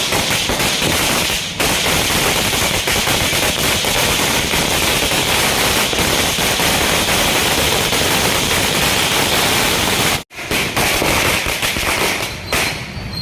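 Firecrackers bursting in a rapid, unbroken crackle of sharp bangs. It drops out for an instant a little after ten seconds in, then crackles on until near the end.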